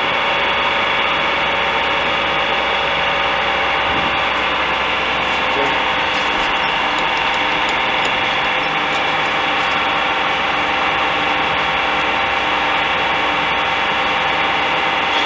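Metalworking lathe running, a steady mechanical hum with several constant whining tones from its motor and gear train.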